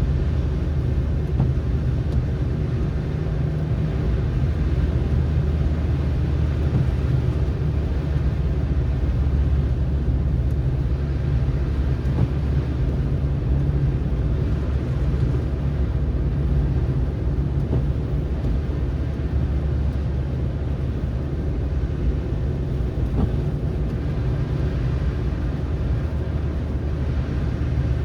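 Car driving on a snowy road: a steady low rumble of engine and tyre road noise, unchanging throughout.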